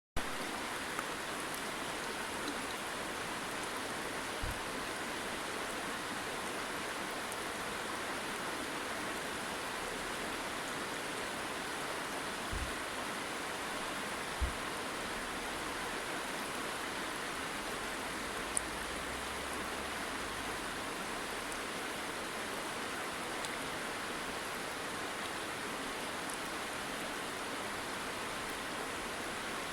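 Steady rush of running water, an even hiss that does not change, with a few faint low thumps along the way.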